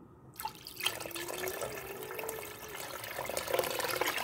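Broth with a whole fish in it boiling hard in a cooking pot: dense, even bubbling and popping of the liquid, starting about half a second in.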